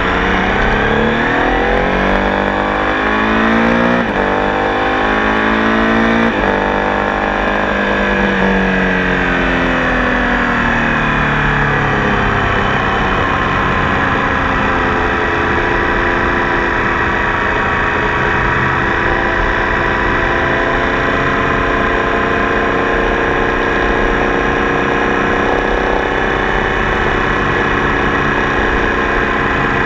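Triumph Tiger Sport 800 motorcycle's three-cylinder engine pulling hard through the gears, its pitch climbing and dropping back at shifts about four and six seconds in. It then eases off and settles into a steady cruise.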